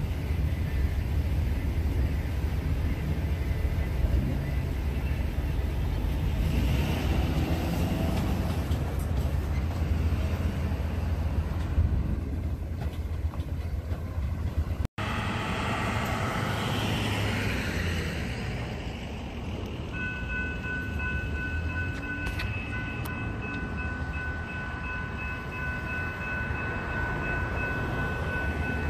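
Railroad grade-crossing sounds: a steady low rumble while the gates rise, then after a cut a crossing warning bell sounding steadily, starting about two-thirds of the way in, as the gates stand lowered with the lights flashing.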